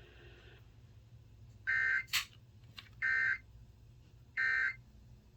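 Emergency Alert System end-of-message data tones: three short bursts of the buzzing digital signal, about a second apart. A sharp click comes just after the first burst.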